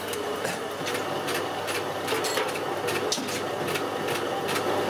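Home-built Astrié stone grain mill running, its electric motor turning the upper millstone as it grinds wheat: a steady mechanical hum with regular sharp clicks about two to three times a second.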